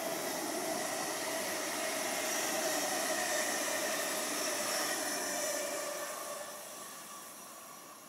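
Electric multiple-unit passenger train passing on the far track: a rush of wheels on rail with a faint steady whine, swelling at first, loudest in the middle, then fading over the last couple of seconds.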